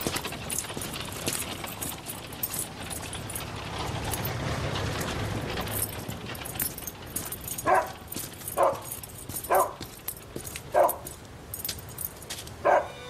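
Scattered clicking and rustling for the first half, then a dog barks five times, short single barks roughly a second apart.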